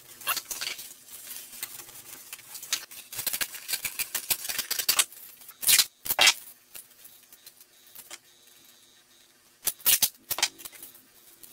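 Stiff cardboard crackling and creasing as it is folded by hand, then silver duct tape ripped off its roll in loud tearing pulls about six seconds in and again near ten seconds.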